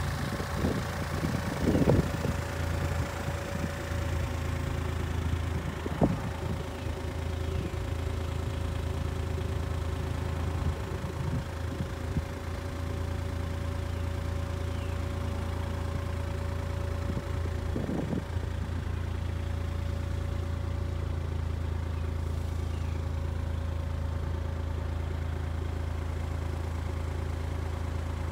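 CAT 303.5E mini excavator's diesel engine idling with a steady, even hum, with a few brief knocks.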